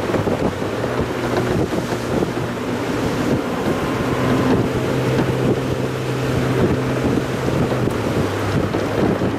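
Mazda Roadster on the move: a steady engine hum under a wash of wind and road noise, with the engine note shifting slightly about four seconds in.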